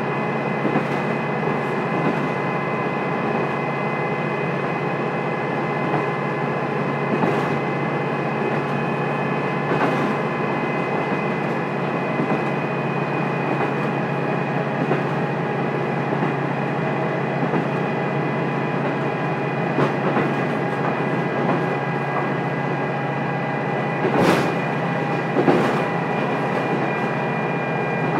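Onboard running sound of a KiHa 200 diesel railcar, heard from the seat over the underfloor engine with the windows shut. The diesel engine and its drivetrain give a steady drone with several fixed whining tones, and a few sharp knocks come through from the running gear, two of them close together near the end.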